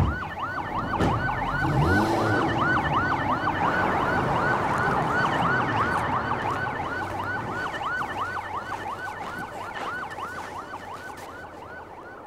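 Police car siren on a fast yelp, its pitch sweeping up and down about three to four times a second, fading away over the last few seconds as the cars drive off.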